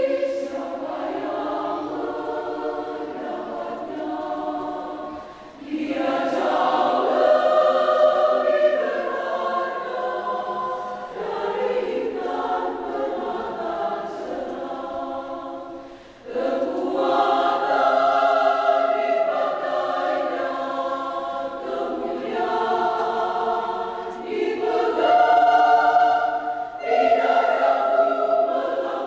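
Women's church choir singing in long sustained phrases, with short breaks between phrases about five and sixteen seconds in.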